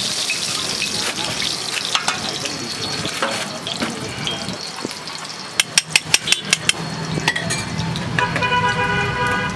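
Oil sizzling on a hot flat iron griddle while eggs are beaten in a steel bowl with a spoon. About halfway through comes a quick run of about eight sharp metal clinks in a second. A steady pitched tone sounds for about a second near the end.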